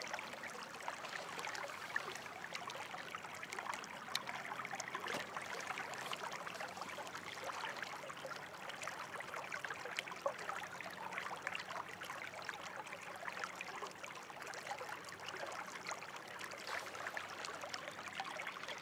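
Running water, like a small stream, trickling and babbling steadily, with many small splashes.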